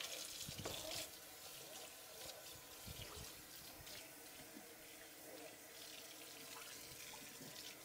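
Kitchen faucet running into the sink as hands are rinsed under the stream: a steady, quiet flow of water, a little louder in the first second.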